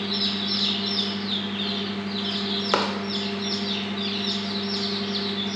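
Newly hatched chicks peeping continuously: rapid high peeps, each falling in pitch, several a second, over a steady low hum. One sharp click comes a little past halfway.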